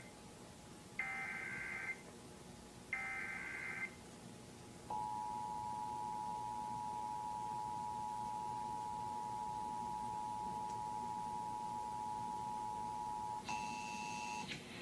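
Emergency Alert System SAME header: repeated one-second bursts of warbling digital data tones about two seconds apart, ending about four seconds in. About five seconds in, the steady EAS two-tone attention signal starts and holds for about ten seconds, marking the start of a Required Monthly Test; near the end other tones briefly join it.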